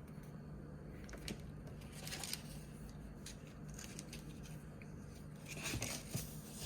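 Faint handling of boot-box packaging, with a few light clicks and rustles over a steady low hum.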